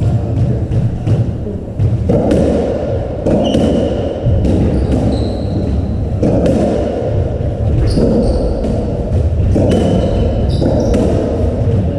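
Squash57 (racketball) rally: the ball repeatedly struck by rackets and thudding off the court walls, with short squeaks of shoes on the wooden court floor.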